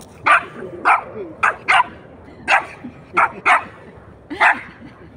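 A dog barking repeatedly, about nine short, sharp barks at uneven spacing, some in quick pairs.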